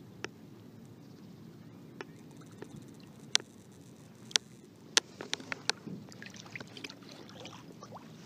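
Shallow water lapping and splashing as a hooked fish is led at the surface, with a run of sharp small splashes and clicks that gets busier about five seconds in.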